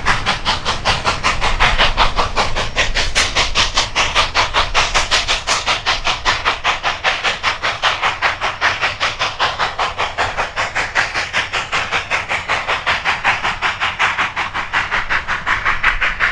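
Narrow-gauge steam locomotive working upgrade, its exhaust beating out rapid, even chuffs over a steady hiss of steam.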